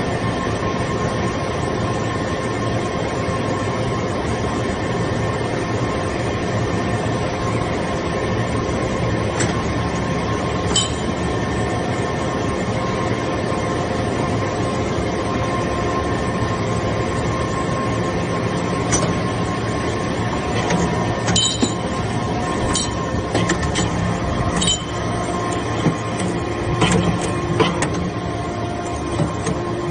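TCM Baler hydraulic metal-chip briquetting press running, with the steady hum of its hydraulic power unit and pump. Sharp metallic clinks come now and then from about a third of the way in, more often in the second half.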